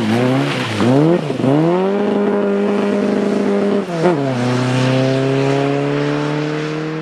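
Opel Kadett rally car's engine accelerating hard away through the gears. The pitch climbs, drops sharply at a shift just over a second in, climbs and holds, drops again at a second shift about four seconds in, then pulls on, fading toward the end.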